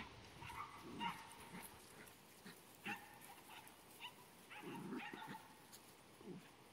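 Miniature Labradoodle puppies at play, giving short, quiet yips and small barks many times over.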